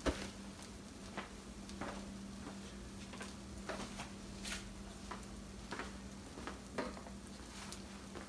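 Omelette frying in butter in a skillet: a faint sizzle with small irregular pops and crackles, over a steady low hum.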